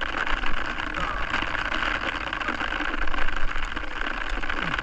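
Steady rushing wind and sea noise on the camera microphone aboard a small boat on open water.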